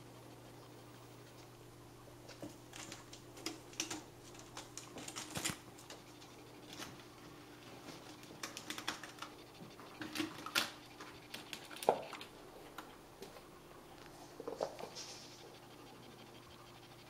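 Bengal kittens' claws scratching and clicking as they climb a sisal scratching post and scramble over a hammock and wooden floor: scattered, irregular scratches and ticks, over a faint steady hum.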